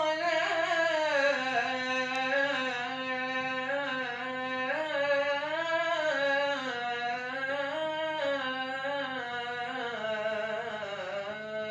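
A man reciting the Islamic call to prayer (ezan) into a microphone: one long, unbroken, ornamented phrase that winds up and down in pitch and settles onto a held note near the end.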